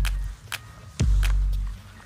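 Background music with a beat: deep bass notes struck about twice a second, with sharp percussion hits on top.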